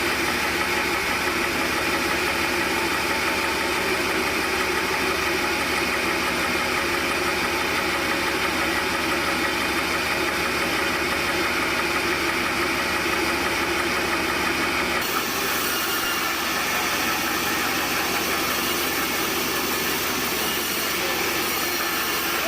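Sawmill band saw and its drive engine running steadily. The sound changes abruptly about fifteen seconds in.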